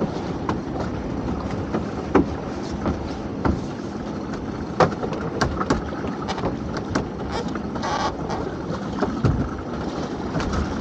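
A lobster-pot line being hauled in by hand over a small boat's gunwale. Scattered sharp knocks and clicks sound over a steady wash of water and wind.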